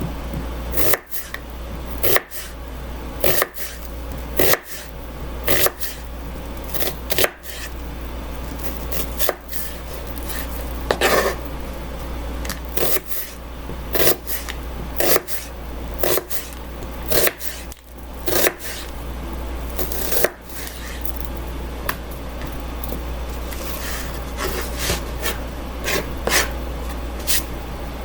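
Kitchen knife chopping down onto a cutting board, one sharp knock roughly every second with a short pause past the middle, over a steady low hum.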